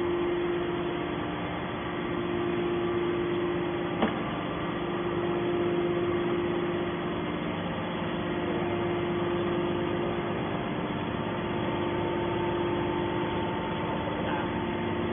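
Hydraulic scrap-metal baler's electric motor and pump running with a steady hum, with a single sharp knock about four seconds in.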